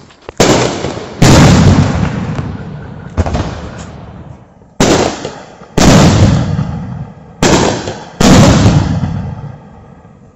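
Double J canister firework shells fired from a mortar tube: a launch thump, then under a second later a louder bang as the shell bursts, three times over, each bang trailing off in a long echo.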